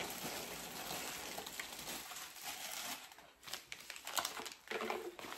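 Packaging crinkling and rustling as it is handled, going over into a few separate sharper rustles in the last couple of seconds.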